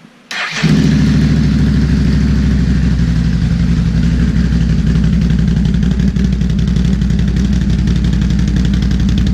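Can-Am Renegade XMR 1000R's Rotax V-twin, breathing through a freshly installed RJWC stainless dual exhaust, starts about half a second in and then idles steadily and loudly.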